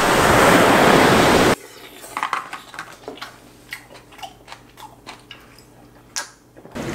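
Waves breaking on a sandy beach, cut off suddenly about a second and a half in. Then a quiet room with scattered light clicks and taps of a cup and tableware on a table, the sharpest one near the end.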